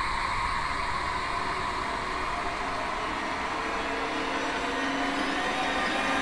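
Dark ambient drone: a steady rumbling hiss with a few faint held tones that fade in and out.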